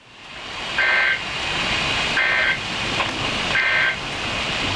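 Emergency Alert System end-of-message data signal: three short bursts of two-tone digital screech, a little over a second apart, over steady hiss.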